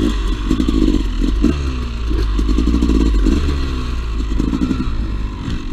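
Two-stroke dirt bike engine running under load on a trail, its revs rising and falling as the throttle is worked.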